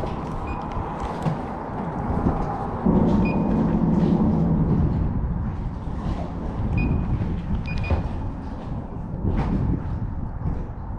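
Low rumble of road traffic crossing the bridge overhead, with one louder vehicle passing from about three seconds in to about five and a half.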